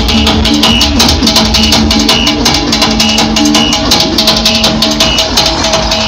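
Loud music with a fast, steady drum beat and plucked guitar.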